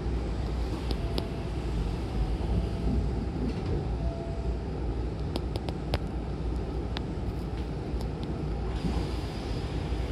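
Hankyu train's sliding passenger doors closing, with a few sharp clicks and knocks about halfway through as they shut, over the steady low rumble of the stopped train. Near the end a hiss rises.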